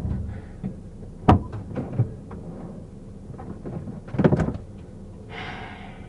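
Knocks and clunks of a car's doors and interior being handled during a search: a sharp click about a second in, a few lighter knocks, and a louder clatter about four seconds in, then a short hiss near the end, over a low steady hum.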